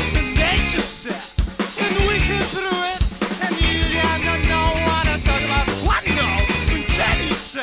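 Background music: a track with a steady drum-kit beat of kick and snare under a melodic line that bends in pitch. The low end drops out briefly about a second in and again about three seconds in.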